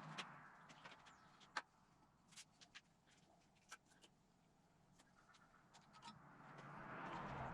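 Near silence with a few faint, scattered clicks, and a soft hiss that swells near the end.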